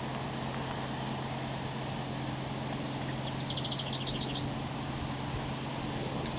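A steady low mechanical hum runs throughout. About halfway through, a bird gives a short, rapid, high-pitched trill.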